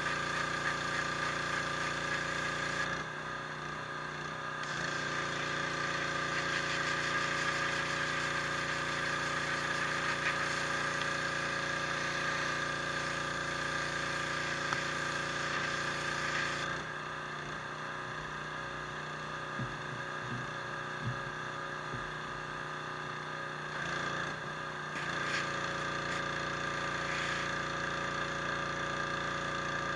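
High-pressure washer running steadily, its motor and pump humming under a hissing spray. Twice the sound drops and thins out: briefly about three seconds in, and for several seconds from a little past the middle.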